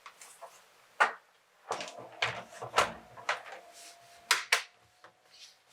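A string of sharp clicks and knocks, like hard plastic being handled on a laptop, the loudest about a second in and two close together near the end.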